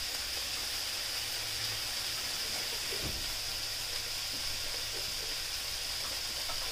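Pork cubes sizzling steadily in a hot coated wok as they brown with brown sugar to caramelize.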